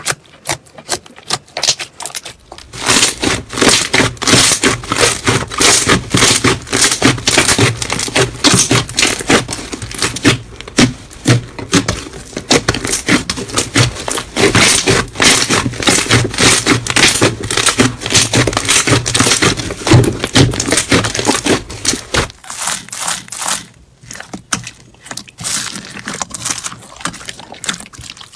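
Slime being squeezed and kneaded by hand, giving off rapid crackling clicks and pops. The clicking is dense and loud through the middle stretch, with sparser, quieter clicks near the start and in the last few seconds.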